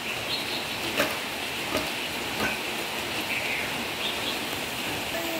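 A steady hiss with three short sharp clicks in the first half, and a few faint short high chirps.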